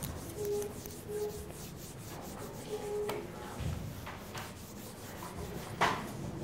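Whiteboard eraser rubbing across the board in repeated strokes, wiping off written work. One brief louder sound comes about six seconds in.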